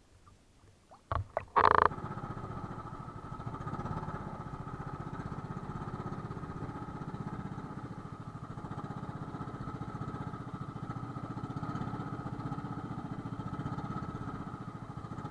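Engine running steadily with a fast, even pulse, after a few knocks and a short loud clatter about a second and a half in.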